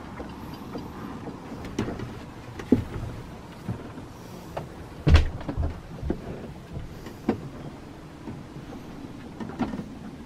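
Scattered knocks and bumps over a low rumble, the loudest a heavy thump about halfway through.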